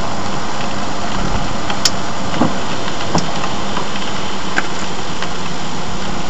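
Steady hiss of road and engine noise inside a moving car's cabin, with a few faint clicks.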